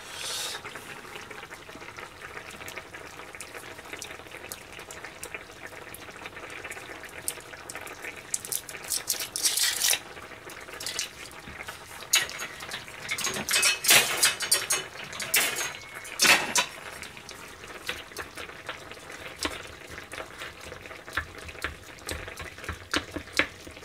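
A utensil clinking and scraping against a pot of stew at irregular intervals, stirring in consommé cubes to break them up and dissolve them.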